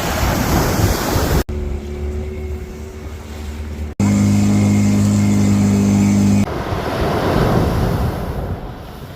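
Sea surf and wind noise, cut twice within the first four seconds into clips of a steady mechanical drone holding level tones. The second drone is the loudest part, and the surf and wind return about six and a half seconds in.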